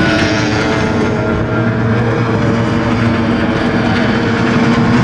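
Racing outboard motors on small hydroplanes running flat out round the course, a steady, high engine note with more than one motor heard at once.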